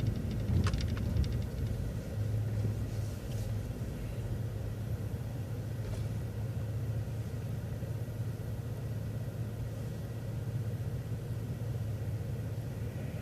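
City transit bus running, heard from inside the bus as a steady low engine hum and rumble, with a short cluster of clicks near the start.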